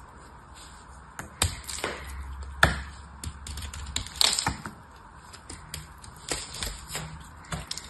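A small knife cutting into a dried, hard bar of soap, with irregular crisp clicks and cracks as flakes and chunks snap off. The loudest cracks come about a third of the way in and just past halfway.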